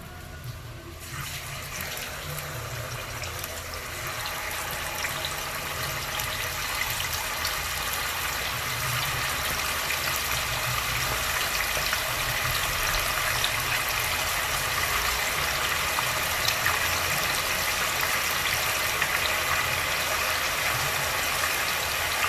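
Chicken drumlets deep-frying in a pot of hot oil: a steady sizzle with small scattered pops. It starts about a second in and grows louder over the first several seconds.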